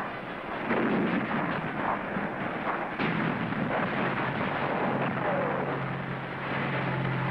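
Artillery field gun firing, sharp bangs among battle noise, the clearest about a second in and at three seconds. A steady low engine drone comes in about five seconds in.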